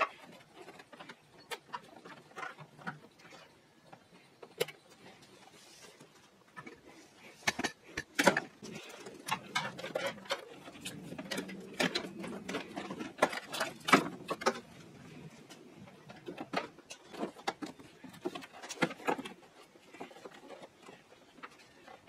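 Hands handling a trunk/fuel-door release cable, making scattered clicks, taps and rustles as it is fed along the trunk lid and into the trunk; the handling is busiest in the middle, with a denser run of scraping and rustling.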